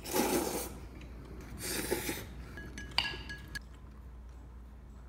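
Noodles slurped from a bowl in two short noisy bursts, then a few clinks of chopsticks against dishes.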